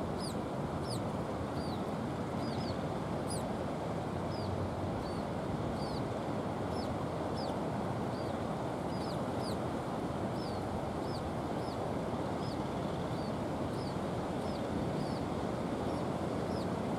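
Scaly-breasted munias calling: short, high, thin notes that slide downward, repeated about once or twice a second, over a steady low rushing background.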